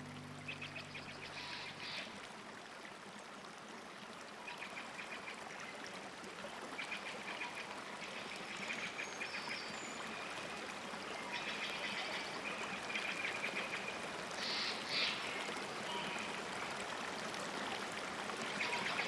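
Flowing water, like a small stream, running steadily, with an animal's short raspy calls repeated in bursts over it.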